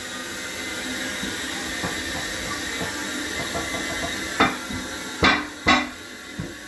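A steady hiss, then three sharp knocks near the end.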